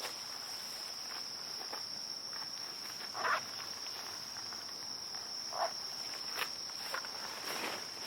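Insects calling with a steady, high-pitched, unbroken drone, with a few faint clicks and two short, louder sounds about three and five and a half seconds in.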